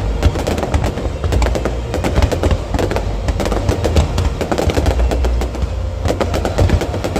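Fireworks going off in a rapid, continuous barrage: dense crackling reports and bangs over a deep rumble of bursting shells.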